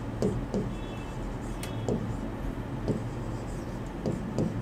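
Writing on a board: a few short, irregular taps and knocks over a steady low hum.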